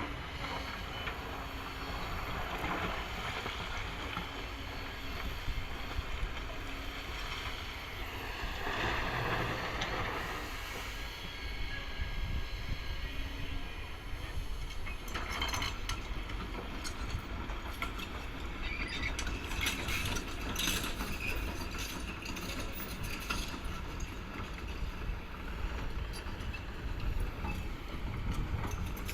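Kobelco excavator's diesel engine running steadily under work, with metallic clanks and rattles that come thick in the second half.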